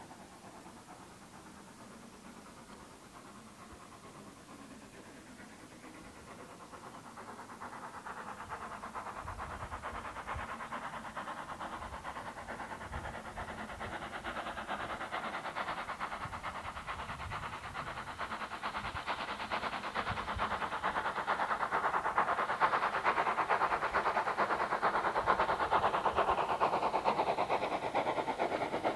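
LSWR S15 No. 506, a two-cylinder 4-6-0 steam locomotive, working a train under steam, its rapid exhaust beats growing steadily louder as it draws near.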